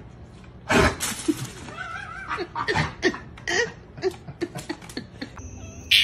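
A person laughing in short repeated bursts, after a sudden loud noise about a second in.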